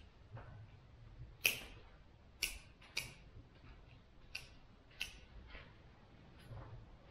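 Hand pruners snipping the lower branches off the bases of Black Hills spruce seedlings, about six sharp snips roughly a second apart with a few fainter ones between.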